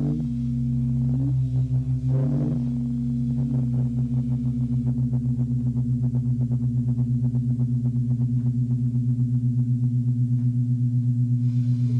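Electronic closing-theme music: a sustained low synthesizer drone on two steady tones, with a small pitch shift in the first couple of seconds and then a fast, even pulsing throb.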